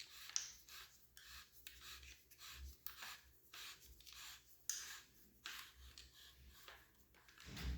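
Faint, repeated short scraping and rubbing of threaded metal parts being unscrewed by hand while a paintball marker is taken apart, with a low thump near the end.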